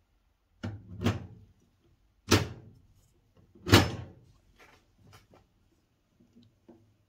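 Long-arm hand riv nut setter being worked on a sheet-steel tool chest to set a rivet nut: a run of sharp metallic clunks, three loud ones a little over a second apart, with lighter clicks before and after.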